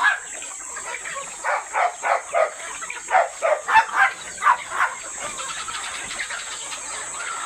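Free-range chickens clucking, a run of short calls about two to three a second that stops after about five seconds, over a steady background hiss.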